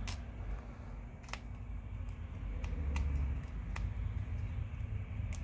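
About six short, sharp clicks and ticks at irregular intervals as tools and broken screen glass are handled against a smartphone's frame, over a low steady rumble.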